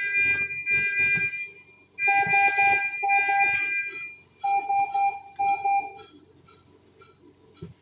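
Electronic alarm sounding in long steady beeps, three of them about one and a half seconds each with short breaks between. Under it a faint short high beep repeats about twice a second.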